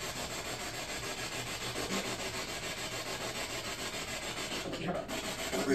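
Spirit box static: a steady hiss of radio noise with a quick, even flutter as the device sweeps through stations.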